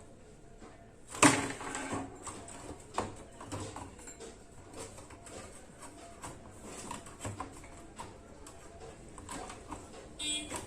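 A loud knock about a second in, then scattered light clicks and taps, with a short rattling buzz near the end.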